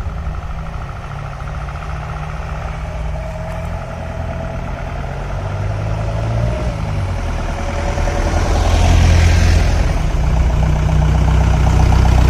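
Diesel 4×4 jeep's engine running on the move, growing louder from about six seconds in.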